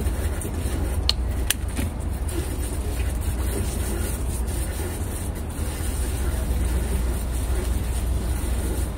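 Steady low outdoor rumble with a faint hiss, with two sharp clicks about a second and a half in.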